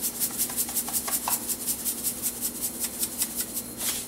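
Salt being dispensed over a stainless steel mixing bowl: a quick, even run of dry rasping strokes, about eight a second, that stops just before the end.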